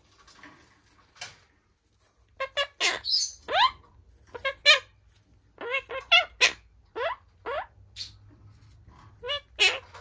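Monk parakeet (Quaker parrot) chattering in short pitched chirps and squawks, some sweeping upward, in three bursts with brief pauses between.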